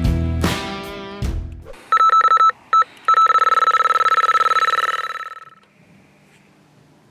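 Background music ends about a second and a half in. An electronic carp-fishing bite alarm then sounds: a single high tone, first as rapid beeps with two short breaks, then held almost continuously for about two and a half seconds before cutting off. This is the sign of a fish taking line on a run.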